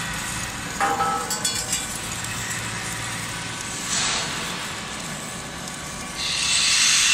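Hand brush sweeping granular submerged-arc welding flux off a stainless steel weld, over a steady background hum, with a few ringing metallic clinks about a second in. Near the end a loud, steady hiss starts and keeps going.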